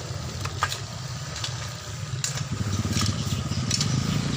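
A small engine running with a low, pulsing rumble that grows louder about halfway through, with scattered sharp clicks on top.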